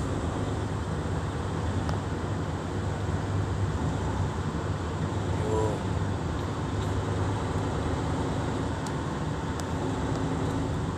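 Steady engine drone and road noise heard inside a truck's cab while driving along a wet motorway.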